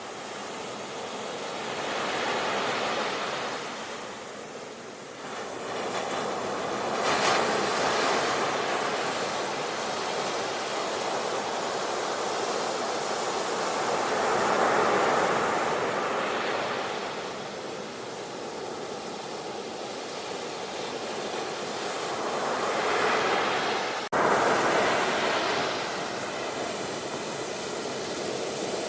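Sea waves breaking and washing on the shore. The rush of surf swells and fades every few seconds. About three-quarters of the way through it drops out for a moment, then comes back abruptly.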